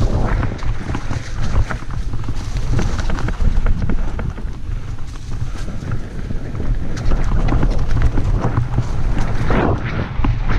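Mountain bike ridden along a trail: steady wind rumble on the action camera's microphone, with the tyres on the dirt and the bike rattling and knocking over bumps.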